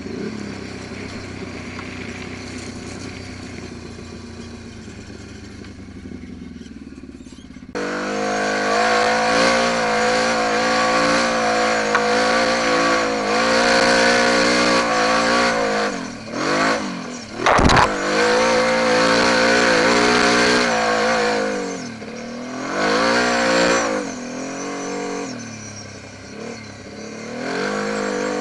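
Quad bike (ATV) engine running while riding a dirt trail, its revs rising and falling with the throttle. About eight seconds in, the sound jumps abruptly louder and clearer, and there is a brief thump near the middle.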